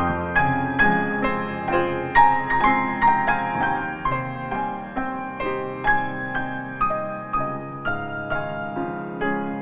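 Background piano music: a gentle melody of notes struck several times a second, each ringing and fading.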